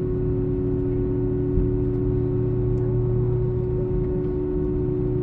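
Cabin drone of an Airbus airliner taxiing: a steady engine and systems hum made of several even tones over low rumble, with one small thump about a second and a half in.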